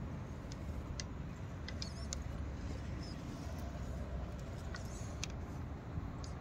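Traxxas TRX-4 RC crawler working over dry, cracked clay, its tyres and the clods giving scattered sharp little clicks and crunches over a steady low rumble.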